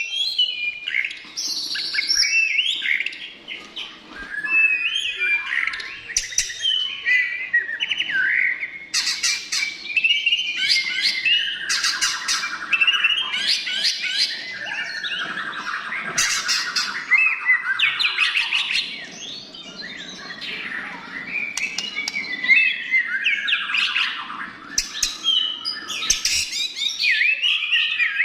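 White-rumped shama singing a continuous, rapid, varied song of whistles, trills and sharp clicking notes, with hardly a pause.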